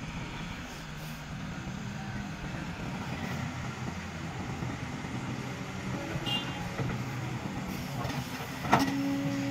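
Diesel engines of a Kobelco hydraulic excavator and a dump truck running, a low steady rumble as the truck pulls forward to the loading spot. Near the end a sharp knock, followed by a steady tone.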